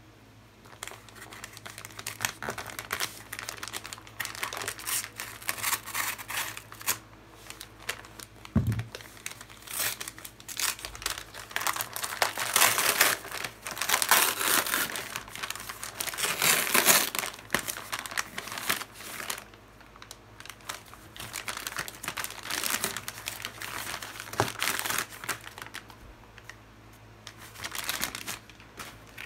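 Kraft-paper padded mailer being torn open and crinkled as the packages inside are pulled out, in irregular rustling bursts, busiest about halfway through.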